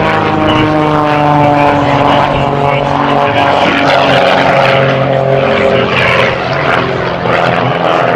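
Aerobatic biplane's piston engine and propeller running hard overhead. The pitch slides down over the first few seconds, then rises again about midway and keeps shifting as the plane manoeuvres.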